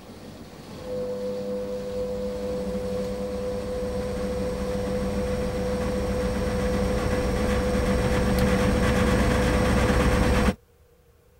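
A low droning rumble with a steady hum that comes in about a second in and swells louder for several seconds, then cuts off abruptly near the end.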